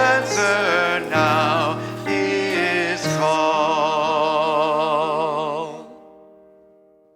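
Hymn singing with accompaniment. The voices sing with a wavering vibrato and close on a long held final chord that fades out about six seconds in.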